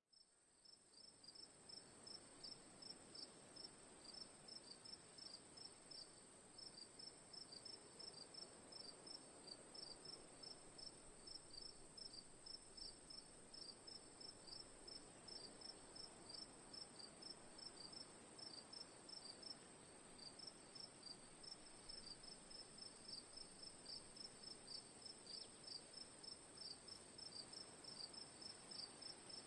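Crickets chirping: a steady high-pitched trill with quick rhythmic chirps just below it, a few a second, over a faint background hiss. The sound fades in over the first two seconds.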